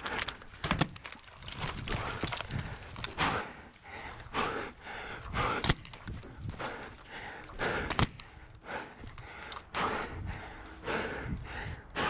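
A paintball player's footsteps and gear movement on dirt, as an irregular run of scuffing strokes about a second apart, with a few sharp clicks in between.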